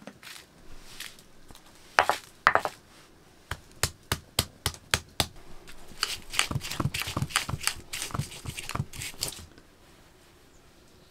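Stone hand-grinder (lohoro) knocking and crushing on a flat grinding stone (silauto), pounding garlic cloves and dried red chili into masala paste. Two sharp knocks are followed by a run of strikes about four a second, then a faster run with dull thuds, which stops about a second before the end.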